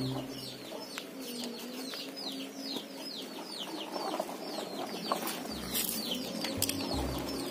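Birds chirping: a steady run of short falling chirps, two or three a second. Low rumbles come in over the last couple of seconds.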